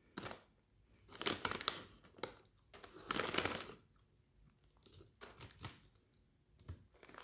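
Plastic snack bag of pretzels crinkling as a hand rummages inside it, in several short, irregular bursts of rustling.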